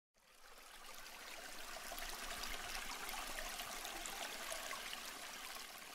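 Running water with a steady rushing, splashing sound. It swells up over the first second or two and then holds.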